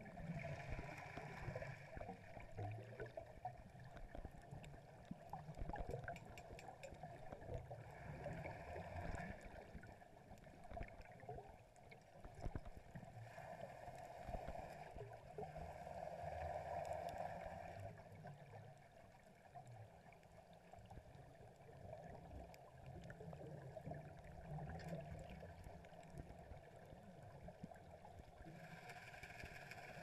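Underwater sound through a camera housing: muffled gurgling and rushing of scuba divers' exhaled bubbles, swelling and fading every few seconds, over a low rumble with scattered faint clicks.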